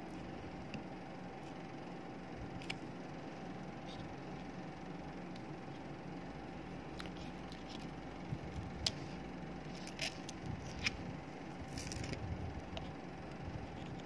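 A thin metal pick scraping and ticking against a plastic phone-charger case as the label is scraped off, with scattered small clicks that come more often in the second half, over a steady low hum.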